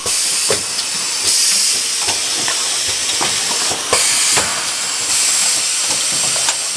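Automatic box tissue packaging machine running: a loud hiss of compressed air from its pneumatic cylinders that swells and eases every second or so, over irregular clicks and knocks of the mechanism.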